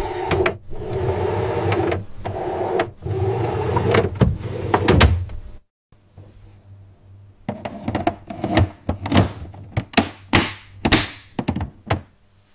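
Steady factory machinery noise with a low hum that cuts off abruptly, followed by a string of separate thunks and knocks, about a dozen over five seconds.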